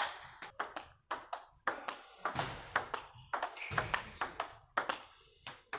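Table tennis rally: the ball clicking off the bats and bouncing on the table, a quick run of sharp clicks at about three to four a second.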